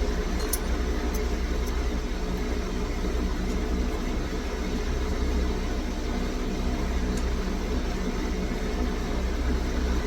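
Steady low motor hum throughout, with a few faint light clicks in the first two seconds and once more about seven seconds in, from small lock pins and springs being handled.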